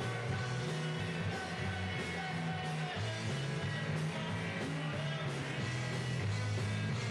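A rock band playing live: distorted electric guitars over a steady bass line and drums.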